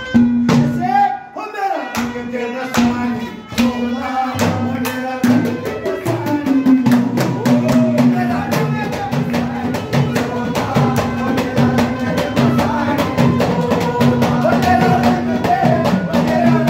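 Live devotional folk music: an Indian banjo playing the melody over steady, rapid beats of a deru (hourglass drum) and a ghada (clay pot drum).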